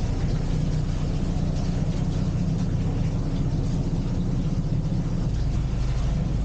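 Narrowboat engine idling steadily, a low, even rumble.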